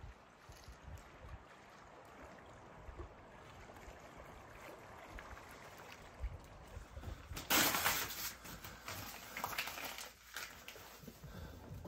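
Faint water lapping along a lakeshore, a soft steady wash. About seven seconds in, louder rustling and knocking begin as newspaper is crumpled and handled at an open wood stove, typical of a fire being laid.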